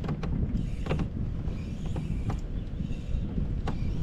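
Wind rumbling on the microphone of a camera on a kayak, with a handful of sharp clicks and knocks scattered through it.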